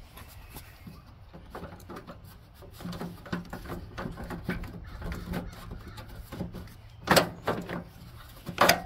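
Plastic shift-lever console being worked off a lawn tractor's fender: a run of small clicks and rattles, then two sharp knocks about a second and a half apart near the end.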